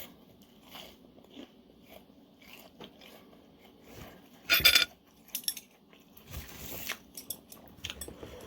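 A person biting and chewing crunchy fried food, with scattered small crunches and one loud, crisp crunch about four and a half seconds in.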